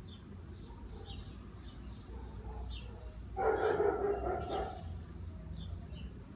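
A cat's loud warning yowl about three seconds in, lasting about a second and a half, made during a face-off with a kitten. Faint bird chirps repeat in the background.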